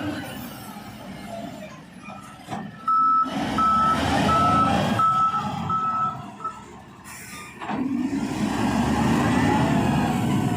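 A heavy construction machine's engine running, with its reversing alarm sounding about six steady beeps, roughly one and a half a second, partway through. The engine drops off briefly after the beeps and comes back louder near the end.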